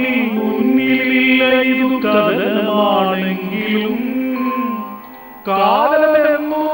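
A man singing a slow melody solo in long held notes with gliding ornaments. The singing breaks off briefly about five seconds in, then picks up again.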